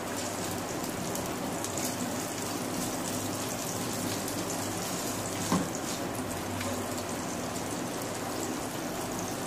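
Sliced onions and whole spices sizzling in hot oil in a non-stick pan, a steady crackling fry. One sharp knock about halfway through.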